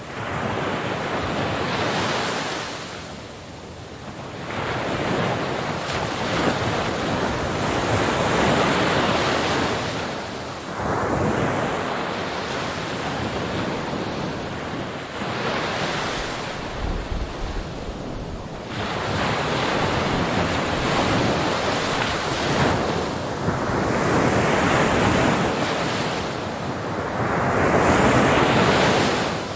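Ocean surf: waves breaking and washing up, the rush of water swelling and fading every several seconds.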